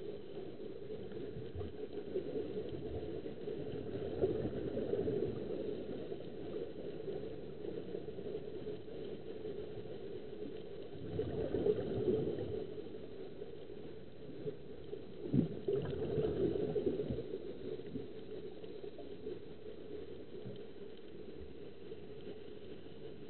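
Muffled underwater noise with air bubbling out of the divers' helmets, swelling louder about four seconds in, again for a couple of seconds near the middle, and once more a few seconds later.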